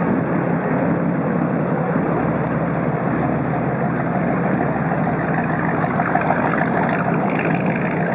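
Inboard engines of wooden runabouts running steadily on the water with a constant low hum. A passing Gar Wood runabout adds its own engine sound past the middle.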